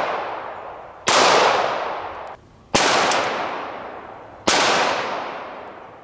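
Springfield 1911 pistol firing .45 ACP: three shots, about a second and three-quarters apart, each sharp crack trailing off in a long fading echo, with the tail of a shot fired just before still dying away at the start.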